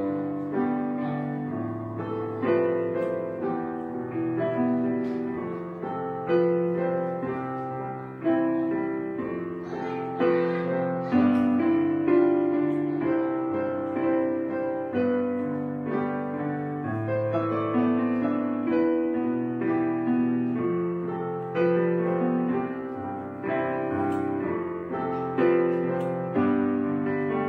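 Background piano music, with notes struck and fading about once a second.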